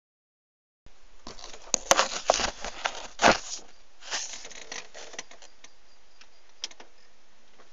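Handling noise from a mobile phone being moved and propped in place: a string of knocks, clicks and rustling, with the loudest knock about three seconds in, then a low hiss with a few light clicks.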